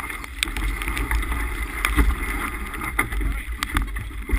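Wind buffeting the microphone aboard a sailboat under way, with water rushing along the hull and scattered sharp knocks and flapping from the luffing jib and rigging.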